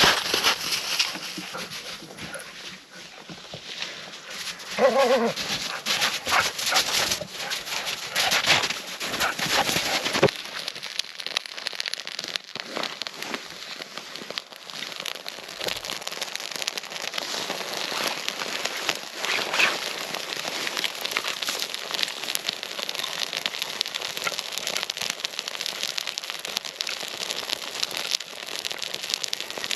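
Campfire crackling and popping steadily, with a dog's short pitched call about five seconds in.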